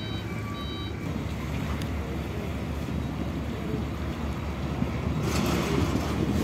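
Cargo truck's reversing alarm beeping in an even pulse, cutting off about a second in, over the steady low rumble of the truck's engine running. A short hiss comes about five seconds in.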